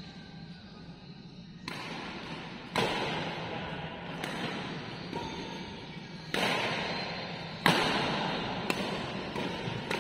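Badminton rally: rackets striking a shuttlecock in a series of sharp hits roughly a second apart, starting a little under two seconds in, each hit ringing on in the echo of a large hall.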